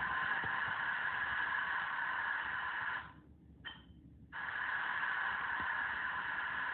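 HO-scale model locomotive's sound-effects playing through its small onboard speaker: a steady engine sound. About three seconds in it cuts out for roughly a second, with one short high beep, then comes back.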